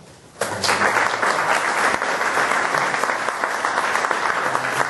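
Audience applauding, many hands clapping, starting suddenly about half a second in.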